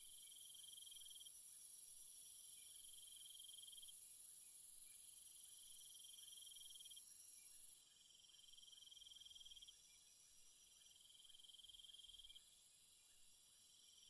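Faint insects calling: a steady high hiss with a repeated trill about every two and a half seconds, each lasting about a second and a half. The highest hiss drops away about eight seconds in.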